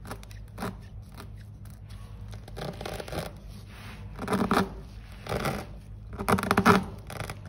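A tire-puncture reamer, freshly coated with vulcanizing fluid, being twisted in and out of the puncture hole. The steel rasps against the rubber in a series of scraping strokes that grow louder from about halfway through.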